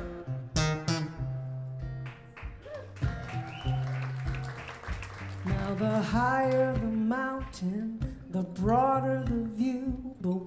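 A woman singing live to her own acoustic guitar. The guitar plays alone for the first half, and her voice comes in about halfway through.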